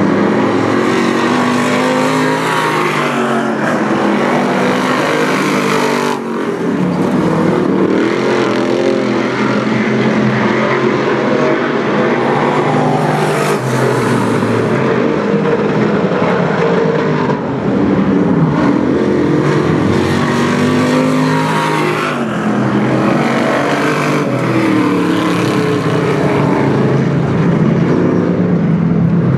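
Dirt-track race cars' V8 engines running hard on practice laps, loud and continuous. The pitch climbs as the cars accelerate and drops as they lift off, with more than one engine heard at once.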